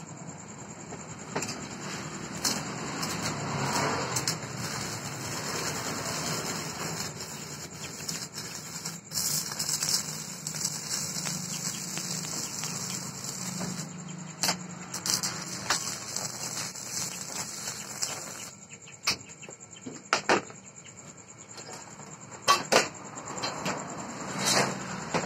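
Stick-welding arc burning steadily as a steel rod is welded to a steel base plate, a dense crackle that lasts about sixteen seconds. It stops about eighteen seconds in, and a few sharp metal knocks follow.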